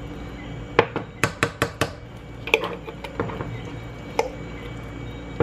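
Plastic measuring spoon scooping canned pumpkin from an opened tin can, clicking and tapping against the metal. A handful of sharp clicks, with a quick run of four about a second in.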